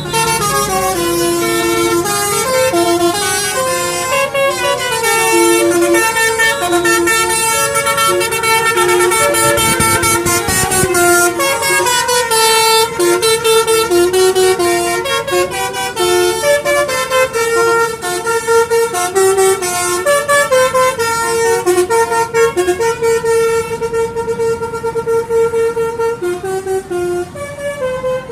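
Telolet musical air horns in a horn battle, playing tune after tune as loud, stepped multi-note melodies with hardly a break.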